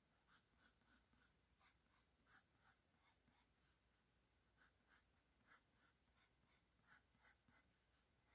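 Faint pencil scratching on sketchbook paper: short, quick sketching strokes at about three a second, with a brief pause about four seconds in.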